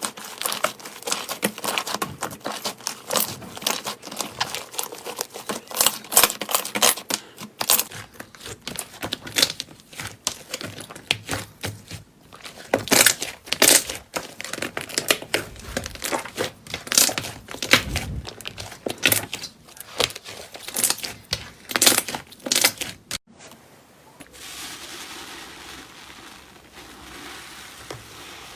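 Slime being squeezed and pressed by hand: dense, irregular crackling and popping clicks. Near the end there is an abrupt cut to a quieter, softer hiss-like rustle.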